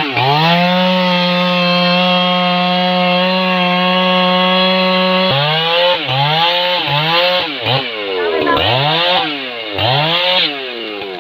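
Two-stroke chainsaw held at high revs for about five seconds, then revved up and down in a string of quick throttle blips.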